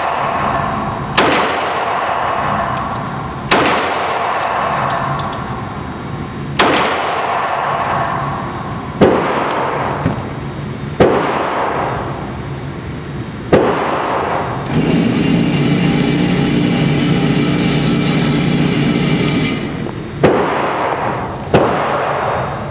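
CZ 97B .45 ACP pistol firing 230-grain ball, eight single shots at a slow, uneven pace, roughly two seconds apart, each with a ringing tail. Between the sixth and seventh shots there is a steady rushing noise for about five seconds.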